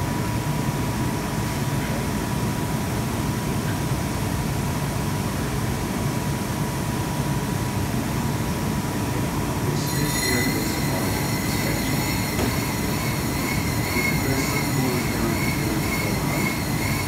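Steady hum and rumble of factory workshop machinery, with a thin steady tone. About ten seconds in, a high, wavering squeal like a spinning wheel grinding starts and keeps going.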